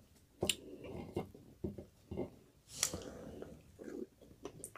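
Eating fried chicken close to the microphone: a scatter of short, sharp clicks, crunches and mouth smacks as the meat is picked apart and chewed.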